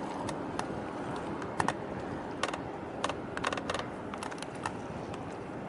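Irregular sharp clicks and taps, some in quick pairs and clusters of several a second, over a steady low rumble of harbour noise.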